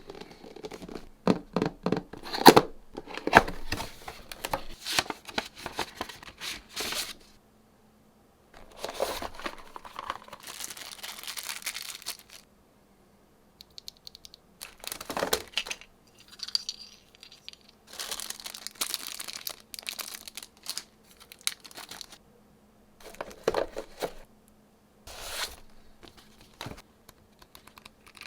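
Keyboard packaging being opened by hand: tearing and crinkling in irregular bursts, with a run of sharp clicks in the first few seconds and two short pauses.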